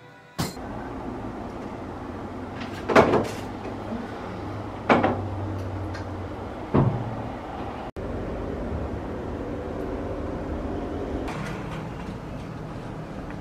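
Three sharp knocks about two seconds apart over room noise. Then a steady low hum of an elevator car travelling.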